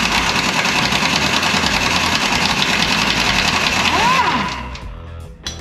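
Impact wrench hammering continuously with a rapid, dense rattle for about four and a half seconds, then spinning down with a falling whine and stopping.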